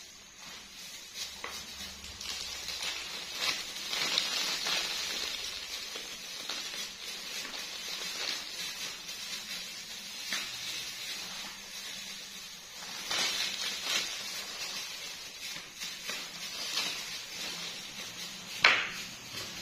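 Rustling, hissy handling noise with scattered light clicks and one sharper click near the end.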